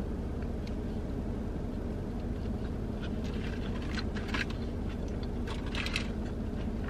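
Close-up eating sounds: chewing chicken wings and licking fingers, with a few faint clicks of a plastic fork against the food tray a few seconds in, over a steady low hum.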